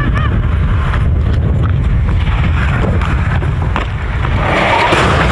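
Wind buffeting an outdoor microphone with a steady low rumble and scattered clicks, and a car driving past near the end.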